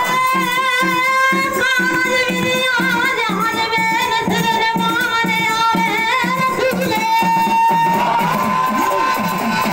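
A man singing Bundeli goṭ folk song through microphones, holding long high notes with a wavering pitch, over a steady drum beat.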